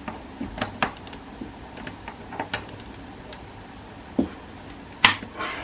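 Scattered clicks and light taps from a phone charger and USB cable being handled and plugged in. There is a duller knock about four seconds in and a sharp, louder click just after five seconds.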